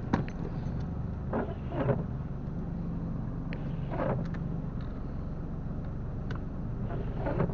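Car engine idling steadily, with a few short knocks and rustles over it.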